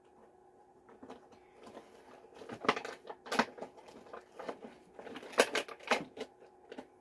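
Packaging of a boxed hot sauce seven-pack being handled and pried open: irregular clicks, taps and crinkles, with a few sharp snaps near the middle and again near the end.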